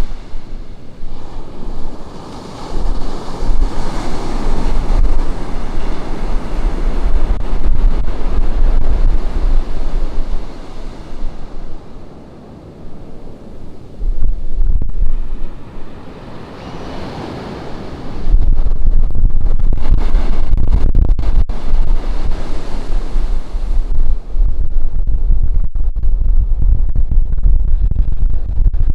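Ocean surf breaking and washing up the beach, the wash swelling and easing as waves come in, with wind buffeting the microphone in a low rumble, heaviest in the second half.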